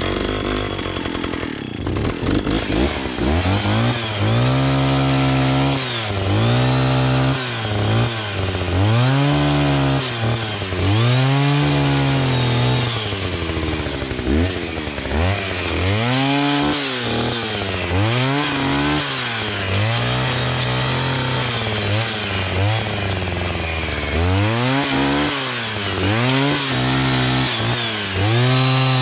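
Two-stroke chainsaw with a freshly sharpened chain cutting into juniper. The engine note dips and recovers about every two seconds as the chain bites and clears, then holds a steady high speed near the end.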